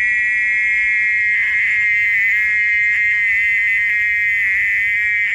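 Very loud, continuous buzzing call of a night animal calling from inside a hollow log, which the uploader takes for a tree frog. It is a steady high buzz that wavers a little in strength and cuts off suddenly at the end.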